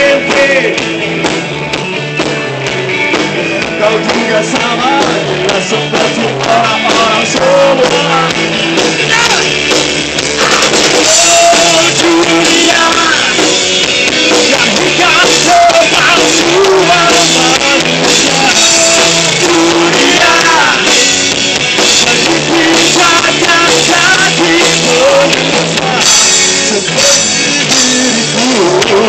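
Live rock band playing loud: electric guitar through Marshall amplifiers, a drum kit and a singer.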